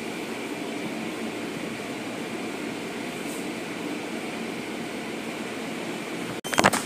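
Automatic car wash heard from inside the car: a steady rush of water spray and rotating brushes working over the car. It cuts off abruptly near the end, followed by a few sharp clicks and knocks.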